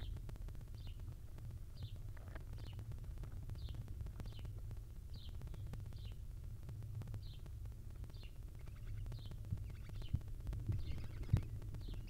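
Faint bird chirps, one short falling note repeated roughly once or twice a second, over a steady low hum. Near the end come a few knocks as the adult barn owl shifts over its chicks on the floor of the wooden nest box.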